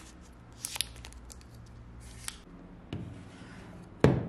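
Hands handling an Apple Pencil and the iPad box packaging: a few light clicks, a short rustle, then a soft swish. A loud sharp knock comes a little after four seconds.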